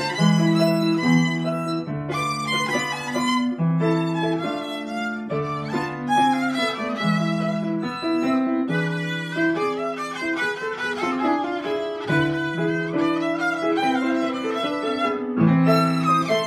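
Violin playing a melody with grand piano accompaniment. The piano keeps up repeated low chords at an even pace under the violin line.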